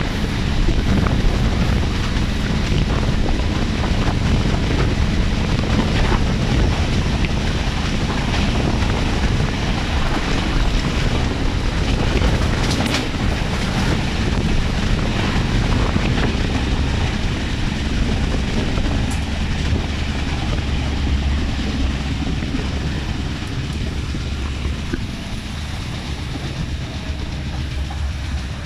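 Moving passenger train running along the track, heard from an open window: steady wheel and rail rumble under heavy wind buffeting on the microphone. It eases a little near the end.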